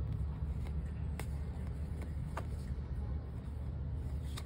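Steady low background rumble, with a few faint clicks of tarot cards being sorted and fanned in the hands, clearest about a second and two and a half seconds in.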